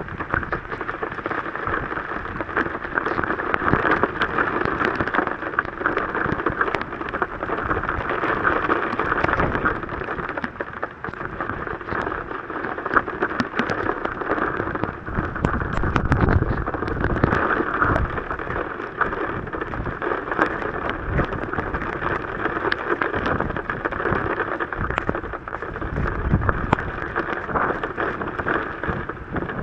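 Heavy rain pelting a vehicle's windshield and roof, heard from inside the cabin as a dense steady patter of countless drop impacts. Low rumbling surges swell up briefly around the middle and again near the end.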